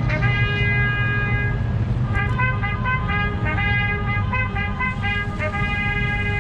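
Horn tones sounding in a run of short and long blasts at a few steady pitches, over a steady low engine hum.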